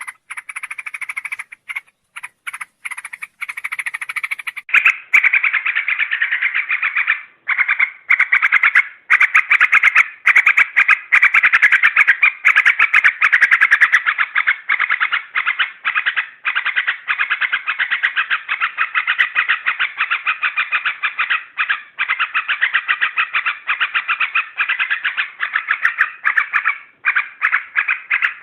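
Yellow-vented bulbul calls played as a lure: a rapid string of short, harsh chattering notes. The notes come spaced out for the first few seconds, then run into dense, nearly unbroken chatter from about five seconds in.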